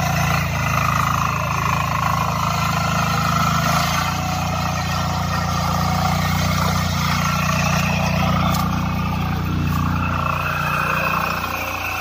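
Husqvarna TF 544 power weeder's single-cylinder air-cooled diesel engine running steadily under load as the machine tills the soil. It grows quieter near the end.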